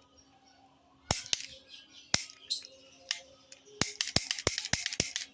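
Toy roll cap gun firing paper caps: about nine sharp cracks, a few spaced out at first, then a quicker run of shots near the end.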